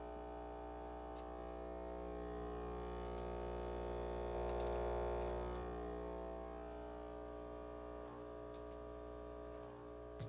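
LG GW-B509SQJZ refrigerator humming: a steady drone of several tones together, swelling louder about four to five seconds in and easing off again.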